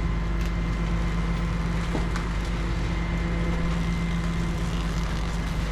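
Tow truck's engine running steadily, an even low hum, as the winch lets the car down.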